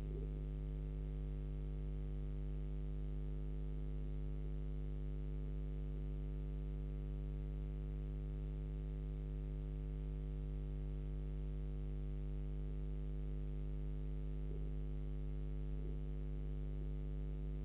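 Steady electrical hum made of several fixed tones and a deep low drone, unchanging throughout, with no animal calls standing out.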